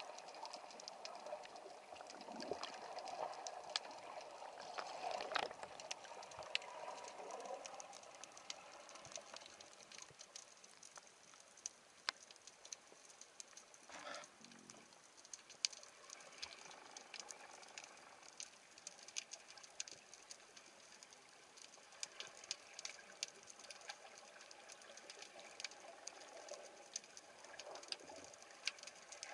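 Underwater sound of a rough, surging sea: an even hiss with constant sharp crackling clicks, and swells of rushing water noise in the first few seconds and again near the end.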